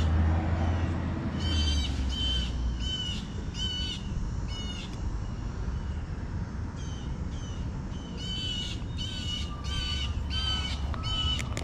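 A bird calls over and over in short, harsh, arched notes, in two runs with a pause of about two seconds between them. Low wind rumble on the microphone fades out over the first few seconds.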